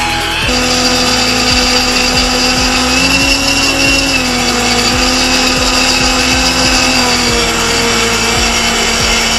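Hovercraft's ducted fan and motor running steadily with a whine; the pitch rises a little about three seconds in and settles back down around seven seconds.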